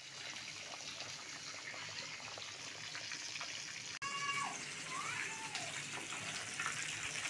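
A pot of pork sinigang with okra and sweet potato tops boiling on a gas stove, a steady bubbling hiss. After a cut about four seconds in, the hiss is a little louder and two or three short falling cries sound over it.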